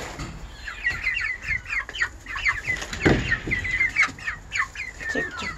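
Hens clucking with a rapid run of short, high calls that slide downward in pitch, with a thump about three seconds in.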